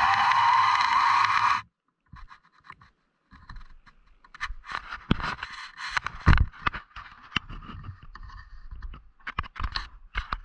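A loud steady hiss that cuts off suddenly about a second and a half in, followed by irregular scraping, rubbing and knocking from the camera being handled and moved about, with a few sharper thumps.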